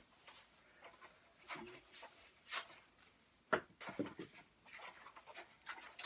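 Scattered clicks, knocks and rustles of packaging and parts being handled, with one sharper knock about three and a half seconds in.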